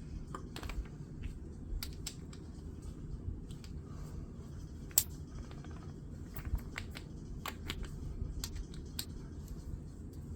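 Irregular light clicks and clatters of small hard objects being handled while someone looks for a charged battery, with one sharper click about five seconds in, over a steady low hum.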